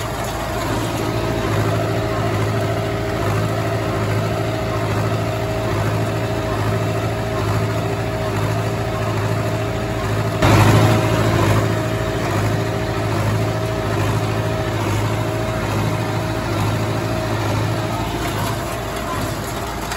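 Tractor engine running steadily while driving a New Holland 311 small square baler picking up hay, with the baler's mechanism adding a regular beat. A louder clatter comes about halfway through.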